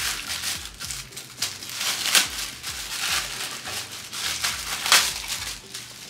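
Clear plastic bag crinkling and rustling as a plastic feeder part is pulled out of it, with sharper crackles about two seconds in and again near five seconds.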